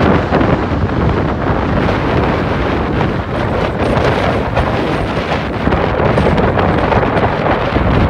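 Storm-force wind gusting across the microphone: a loud, continuous, buffeting rumble.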